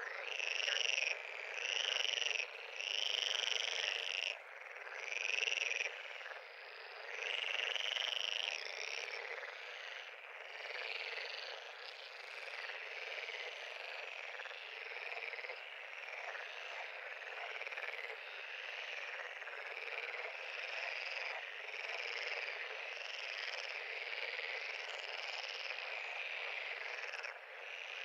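A chorus of many frogs calling. Several louder, distinct calls stand out over the first nine seconds or so, then the calling settles into a dense, steady chorus.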